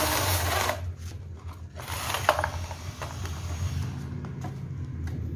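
Battery-converted drill boring into a concrete block with a masonry bit: a loud grinding that stops about a second in, followed by light clicks and scrapes.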